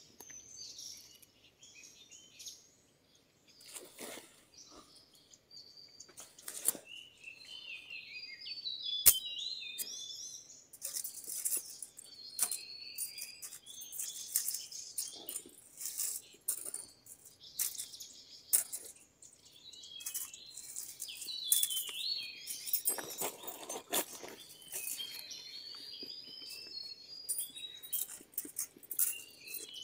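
Forest birds chirping and calling, short whistled notes and glides repeating throughout. Dry leaves and twigs rustle, with small sharp clicks as a small wire trap is handled, busier from about ten seconds in.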